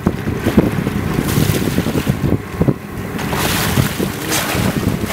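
Water splashing and churning as a bluefin tuna thrashes at the surface alongside the boat, with heavy wind buffeting on the microphone.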